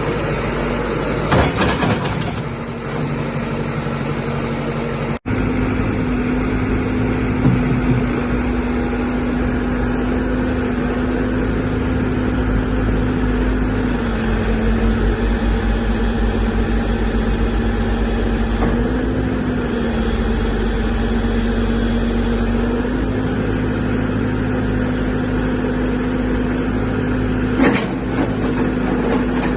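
Caterpillar 416C backhoe loader's diesel engine running steadily, its pitch dipping and rising slightly a few times. There are short knocks about a second and a half in and near the end.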